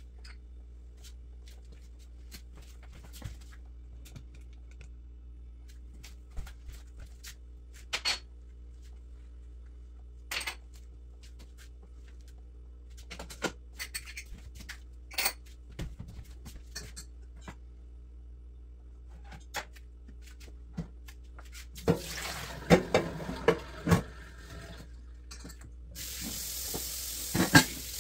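Kitchen items and dishes being handled and set down on the counter: scattered clinks and knocks, then a quick run of clattering dishes about three quarters of the way through. Near the end the faucet is turned on and runs into a stainless steel sink with a steady hiss.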